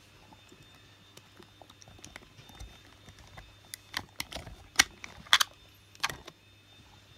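Sharp plastic clicks and taps from a wireless earbud charging case being handled. They are scattered and light at first, with a cluster of louder clicks from about four to six seconds in.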